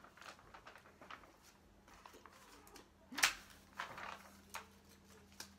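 Paper rustling and light clicks and knocks as paper question slips are handled and drawn from a plastic bowl, with one sharper snap about three seconds in.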